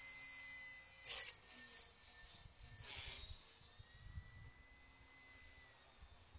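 Align T-Rex 600 radio-controlled helicopter flying at a distance: a thin high whine whose pitch dips and rises as it manoeuvres, with two brief rushing swishes, one about a second in and one around three seconds. It grows fainter toward the end.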